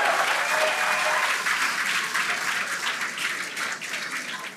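A crowd applauding, the clapping slowly dying away.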